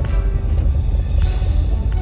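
Background music with a deep, heavy low end and held tones.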